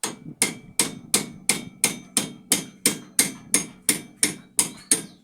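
Hammer striking steel over and over, about three blows a second, each with a short metallic ring. The blows are driving out a stuck pin that holds the shock absorber in a pickup's front suspension.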